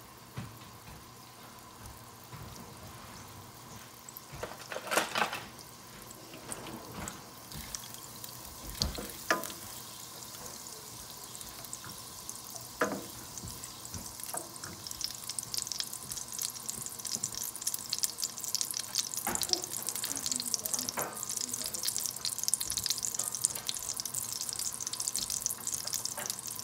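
Butter melting into hot canola oil in a stainless steel sauté pan, a quiet sizzle that grows into a louder, denser crackling sizzle over the second half as the fat foams. A few scattered sharp knocks come over the sizzle.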